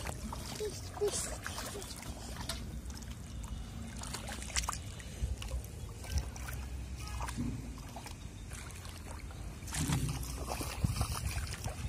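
Water splashing and sloshing as someone wades through a shallow pond and handles fish, with louder splashing about ten seconds in, over a steady low rumble.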